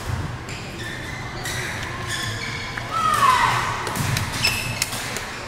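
Badminton rally on an indoor court: shuttlecock strikes and sneakers squeaking and thudding on the court mat, echoing in a large hall. About three seconds in comes a loud high squeal that falls in pitch.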